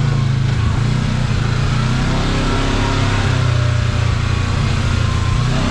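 Kawasaki KRX side-by-side's parallel-twin engine running at a steady low speed under a steady rushing noise.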